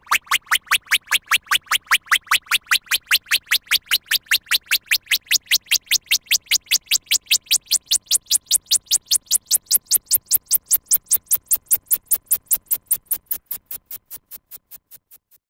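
Electronic synthesized sound effect: a steady train of sharp pulses, about five a second, with a filter sweep that brightens them slowly upward in pitch. The pulses fade out near the end.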